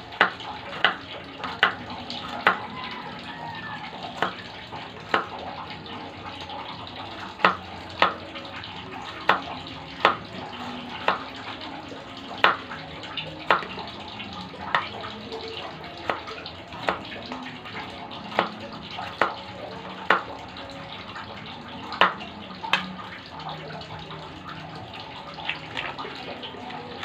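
Kitchen knife cutting peeled garlic cloves, each stroke a sharp knock of the blade on the cutting surface, irregular and roughly once a second, over a steady hiss.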